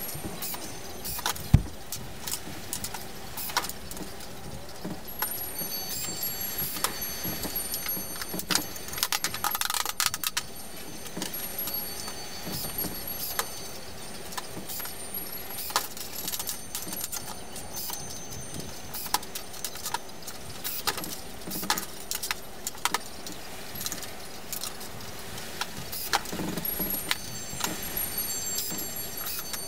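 Metal wire clinking, rattling and scraping as it is handled and laid out on a wooden worktable, in irregular clicks and taps, with one sharp knock about a second and a half in.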